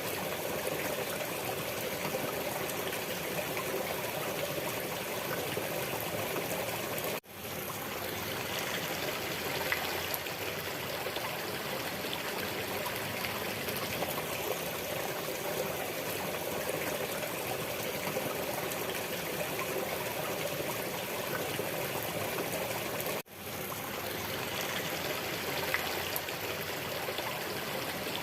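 Steady running water, like a trickling stream, dropping out for an instant twice.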